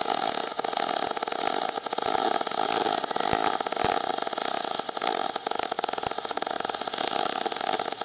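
Aluminium MIG welding arc from a MIG 250E welder, burning steadily as the aluminium wire feeds continuously: an even crackling hiss and buzz that does not break.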